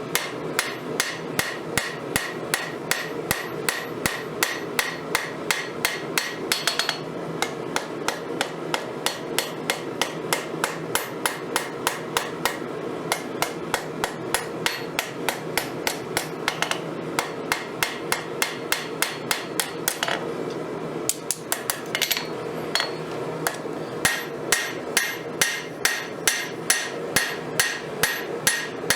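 Hammer blows on steel at the anvil, forging the steel of a broken Crescent wrench into a knife blade: a steady rhythm of about two to three ringing strikes a second, with a few short pauses, over a steady background rush.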